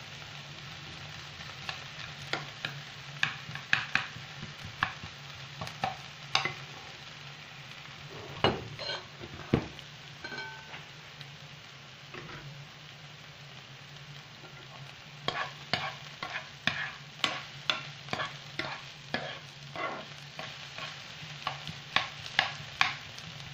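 Diced vegetables sizzling in oil in a nonstick frying pan while a metal spoon stirs them, clacking and scraping against the pan in quick runs. The stirring pauses for a few seconds around the middle and then picks up again.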